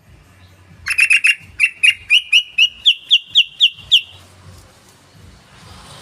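Yellow-vented bulbul (trucukan) call: a rapid, loud series of about a dozen sharp chirps over roughly three seconds, climbing in pitch toward the end.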